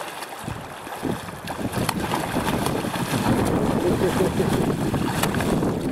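A hooked fish thrashing and splashing in shallow water at the river's edge. The splashing builds up about a second in and stays loud.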